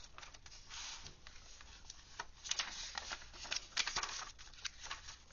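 Paper pages of a handmade junk journal rustling and crinkling as they are handled and flipped, in irregular crisp strokes, the loudest about two and a half to four seconds in.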